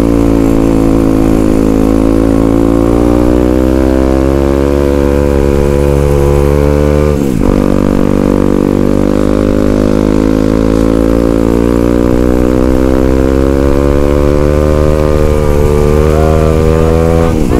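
Yamaha WR155R's single-cylinder four-stroke engine running under way, heard from the rider's helmet mic. The revs build slowly, fall sharply at a gear change about seven seconds in, build again, and fall once more near the end.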